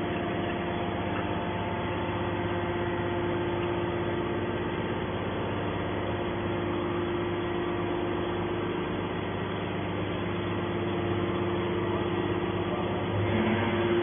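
Hydraulic power unit of a horizontal scrap-metal baler running with a steady hum while the ram pushes a compressed metal bale out of the chamber. It grows louder, with a lower tone joining in, about a second before the end.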